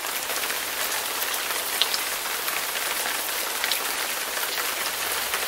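Steady dense hiss with fine crackle and a few sharper ticks, like rain falling on a surface.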